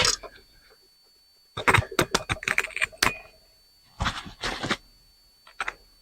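Small metal parts of a cast aluminum outdoor light fixture clinking and clattering as they are handled and pulled apart, in two quick runs of light taps.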